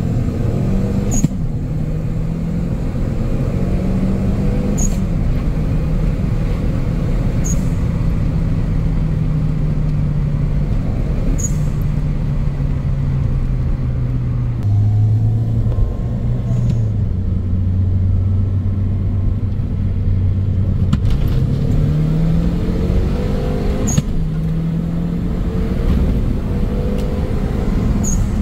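Turbocharged Toyota Yaris 1.5 VVT-i four-cylinder engine heard from inside the cabin. It pulls hard in second gear with its pitch rising, then runs lower through the middle and climbs in pitch again under acceleration near the end. A few short, sharp clicks come through.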